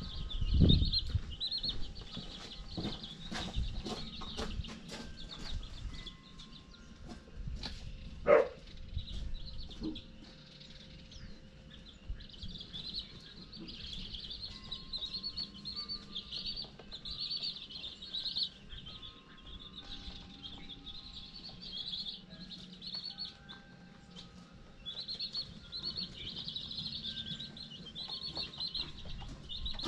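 A group of baby chickens (chicks) peeping constantly, many short high cheeps overlapping. A few knocks and thumps come in the first ten seconds, the loudest about eight seconds in.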